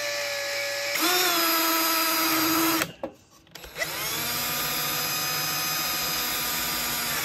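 Black & Decker cordless drill with a 5.5 mm bit boring a blind hinge hole into the glassed edge of a plywood hatch lid. It is a steady motor whine that climbs in pitch about a second in. It stops near the middle and starts again a second later.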